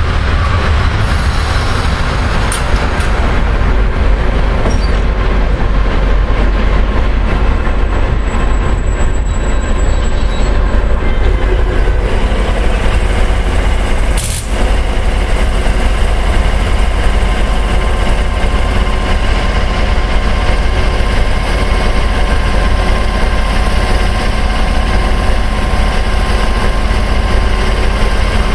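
Class 232 'Ludmila' diesel locomotive with its Kolomna V16 engine running hard as it hauls a log freight train past, with rail and wagon noise. After an abrupt break about halfway through, a steady engine drone with fixed tones follows as the locomotive stands idling.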